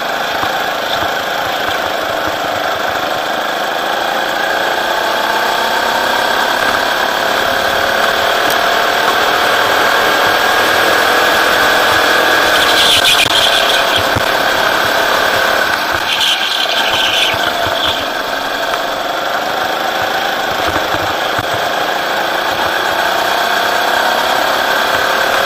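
Rental go-kart's engine running hard on track, its revs rising and falling with the throttle through the corners and straights.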